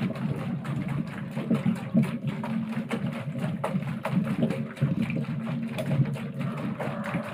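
Homemade bicycle-wheel rig with plastic bottles on the rim spinning, belt-linked to a small motor: a steady low mechanical hum with frequent irregular ticks and rattles.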